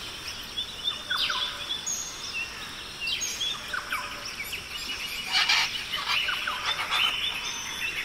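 Several birds calling in a forest: many short chirps and whistled glides, with one harsher, noisier call about five seconds in.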